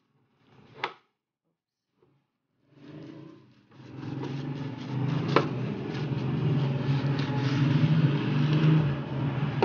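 A sharp click about a second in, then from about four seconds in a steady motor drone with a low hum.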